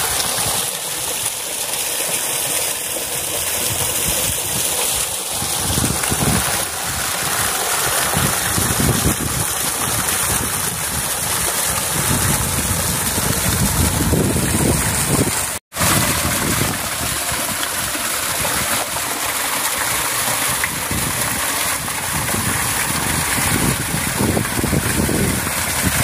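Small rock waterfall running low, its thin streams splashing into a shallow pool with a steady rushing hiss. The sound cuts out for an instant about sixteen seconds in.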